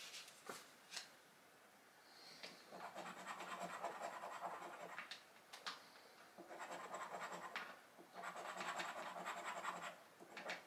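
Scratchcard coating being scraped off in three stretches of rapid scratching, with a few light clicks between them.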